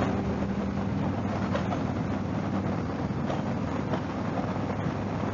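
Motorcycle engine running on the road with wind and road noise, a steady low rumble with no clear pitch.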